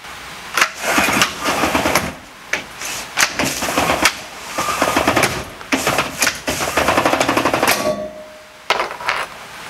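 Aluminium slatted roller shutter bed cover on a Ford Ranger pickup being pulled along its side rails by the strap: a fast, continuous rattle of clicks from the slats running in the rails, stopping about eight seconds in, then a few separate knocks.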